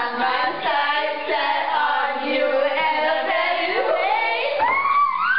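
Several women's voices singing together in held, wavering notes, with voices sliding up high a little after the middle.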